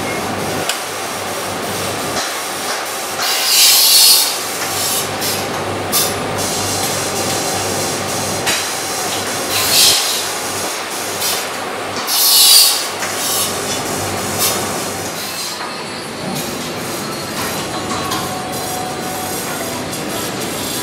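Steady factory-floor machinery noise with a low hum, broken by three short, loud hisses about four, ten and twelve seconds in, with light clicks of work at the bench between them.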